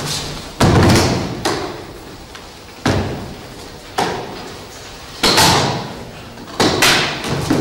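A wooden trunk-style suitcase being set down and handled on a stage floor: about seven heavy bangs and thumps at irregular intervals, each ringing on in the large hall.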